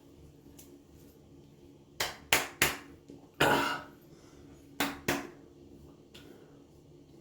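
Palms slapping alcohol-and-menthol aftershave splash onto a freshly shaved face: three quick slaps, a short hissing rush of about half a second, then two more slaps.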